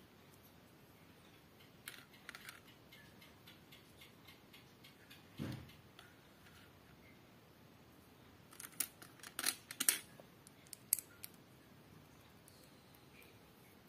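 Small plastic LEGO bricks clicking and clattering as they are handled and pressed together, in scattered runs of small clicks. A duller knock comes about five and a half seconds in, and a cluster of louder, sharper clicks follows around nine to eleven seconds.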